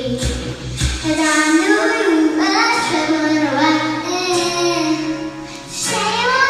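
A child singing a melody into a handheld karaoke microphone over backing music, the voice sounding through the room's speakers; it dips briefly about five and a half seconds in, then picks up again.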